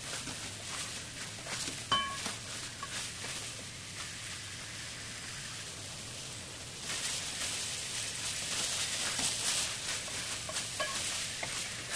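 Marinated chicken pieces sizzling as they fry on high heat in a metal pan, stirred and scraped with a wooden spatula; the sizzle gets louder about seven seconds in. A short ringing clink about two seconds in.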